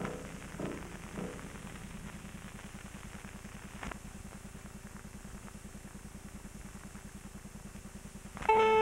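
Steady low hum and buzz with a fast even flutter and faint crackle: the 16mm print's optical soundtrack running over blank film, with a sharp click about four seconds in. The last notes of the score fade in the first second, and plucked-string music starts loudly just before the end.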